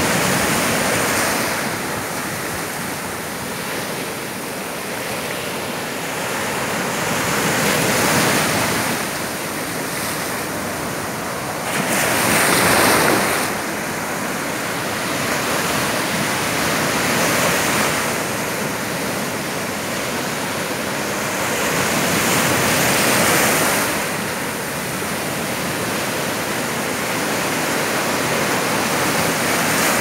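Rough, stormy sea surf: waves break and foam washes up the shore in a continuous rush that swells with each breaker every few seconds, loudest about twelve seconds in.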